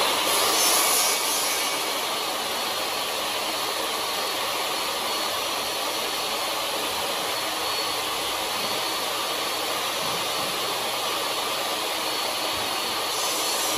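Steady, even rushing machine noise with no rhythm or distinct pitch, loud throughout.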